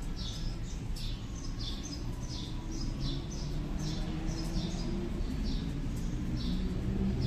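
A bird chirping repeatedly, about two short high chirps a second, over a steady low background rumble.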